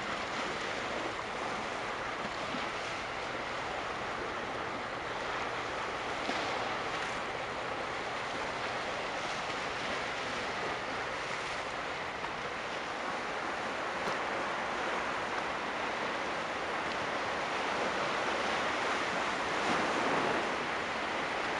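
Steady rush of sea water and waves washing, with some wind, swelling a little near the end.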